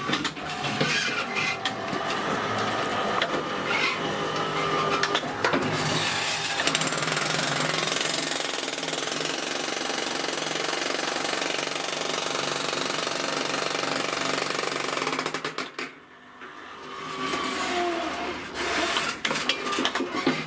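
Jackhammer attachment of a homemade electric power shovel hammering continuously, stopping briefly about three quarters of the way through and then starting again.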